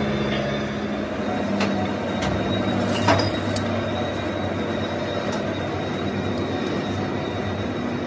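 Steady machine hum from running workshop equipment, with a few light metal clinks about two to three seconds in as steel parts are handled.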